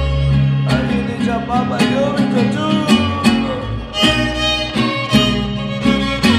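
Live violin and strummed guitars playing an instrumental passage. The violin carries the melody with slides between notes, over a small guitar strumming a steady rhythm and a low bass line.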